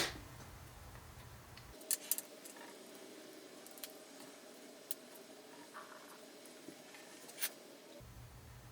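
A few faint, sharp clicks of small plastic kit parts being handled and fitted together, with quiet room tone between them.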